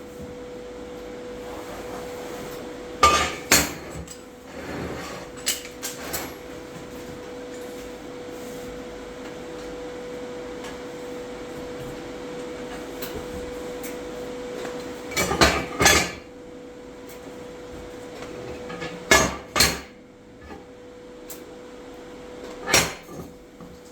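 Steel parts and tools being handled on a metal workbench, with sharp metallic clanks and knocks in short pairs every few seconds over a steady workshop hum.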